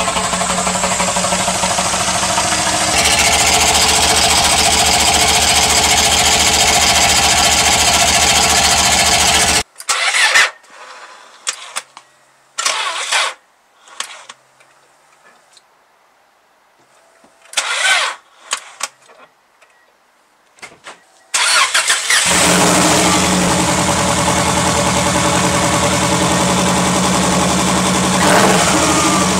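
Turbocharged Subaru EJ22 flat-four engine running, then cutting out suddenly about ten seconds in. A few short bursts of sound follow, and about twelve seconds later it starts again and runs on.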